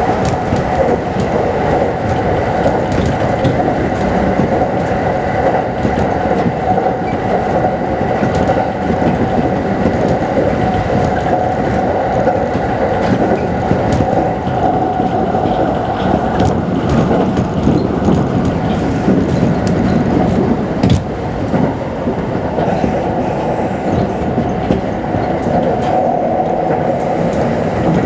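Kintetsu Series 21 electric train running at speed, heard from inside the car: a steady rumble of wheels on rail under a steady whine, with occasional sharp clicks.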